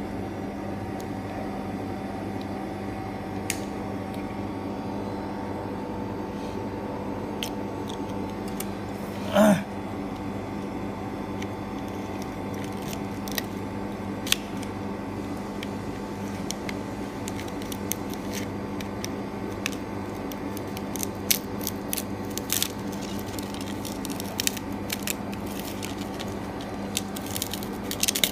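Steady hum of a phone screen-separating machine running, with scattered small clicks and crackles, more frequent in the second half, as a gloved hand presses and works a Galaxy S6 edge screen on its plate. One louder short knock about nine and a half seconds in.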